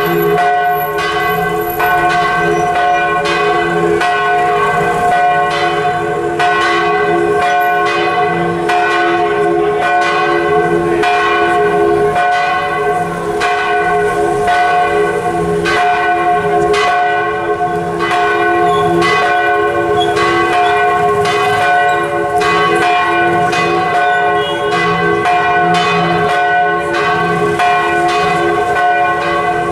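Church bells swinging in a belfry and ringing together in a continuous peal, strokes falling a few times a second over a lasting ring of overlapping bell tones.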